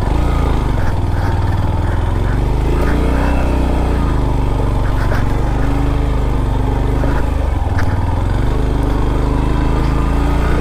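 Motorcycle engine running at low revs, its pitch wavering a little, with scattered light knocks and rattles.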